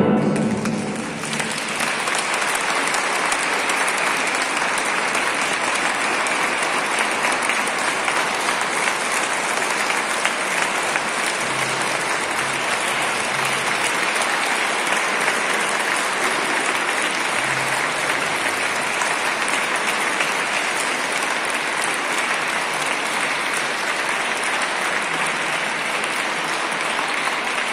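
Audience applauding steadily after the orchestra's last chord dies away about a second in.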